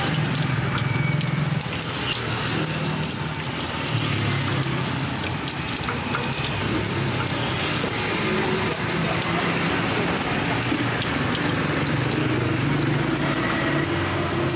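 Electric sugarcane juice press running, its rollers crushing sugarcane stalks fed in by hand: a steady low hum that swells and eases, under an even crackling, hissing noise.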